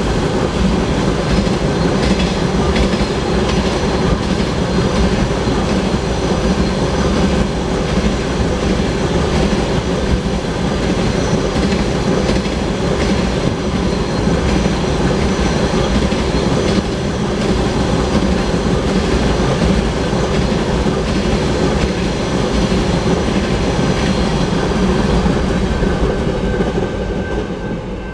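A string of empty oil tank cars on a freight train rolling past, with steady wheel-on-rail noise. It fades near the end as the last car goes by.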